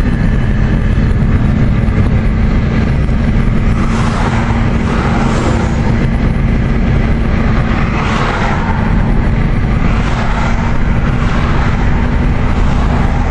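Steady road noise inside a moving car's cabin: engine and tyre drone with a constant low hum, and twice a swell of rushing noise.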